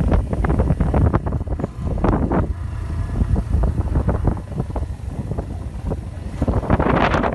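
Wind buffeting the microphone over the low rumble of a moving vehicle, with many short knocks and jolts throughout and a louder gust near the end.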